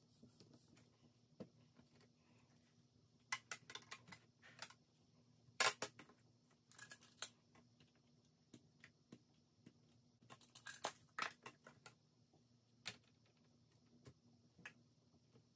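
Scattered light clicks and taps of paper and clear acrylic stamping parts being handled and pressed on a stamping platform, coming in small clusters with short quiet gaps between.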